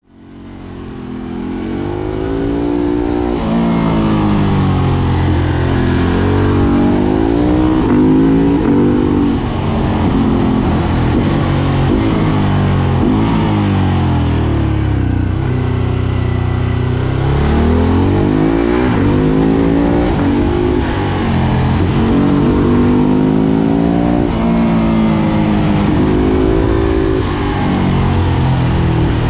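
Ducati Hypermotard 950 SP's 937 cc L-twin, remapped and breathing through a decat pipe, pulling hard through the gears: the pitch climbs and drops back again and again with each shift. About halfway through it holds a few seconds at low, steady revs before picking up again.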